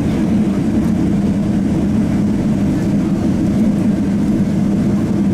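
Steady, loud cabin noise inside a Boeing 777-300, the deep drone of its engines and airflow heard at a window seat, with no change in pitch or level.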